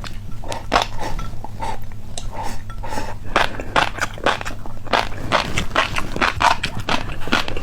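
Close-up chewing of a crunchy snack: a run of sharp, irregular crunches, a few a second.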